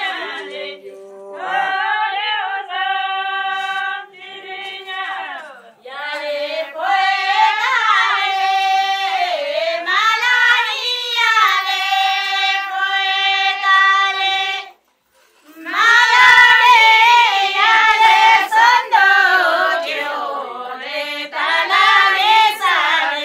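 A group of women singing a Kinnauri folk song together without instruments, in long held notes that slide between phrases. About fifteen seconds in, the singing breaks off for under a second, then carries on.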